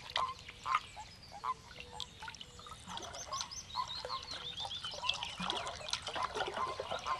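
A chorus of breeding frogs: short croaking calls repeat about once a second. A bird sings a run of quick high notes from about three seconds in.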